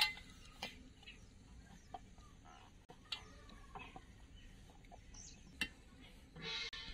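Chickens clucking faintly, loudest near the end, over light scattered clicks of hands kneading dough in a steel plate.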